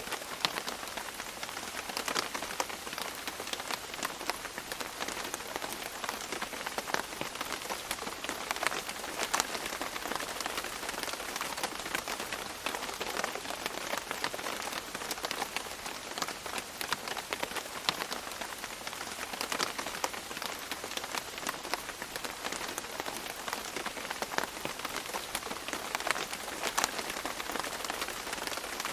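Steady tropical rain falling on leaves, a dense patter of many close drips and drops over a continuous hiss.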